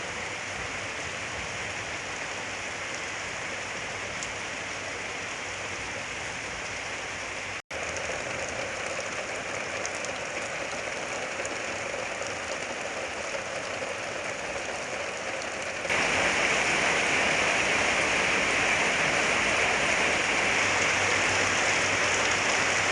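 Heavy rain pouring steadily, with a momentary dropout about eight seconds in; it grows louder about sixteen seconds in and stays so.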